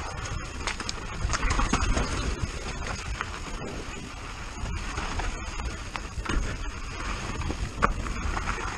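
Downhill mountain bike descending a rocky dirt trail: tyres crunching over dirt and loose stones, the bike rattling and knocking over bumps, under a steady low rumble of wind on the microphone.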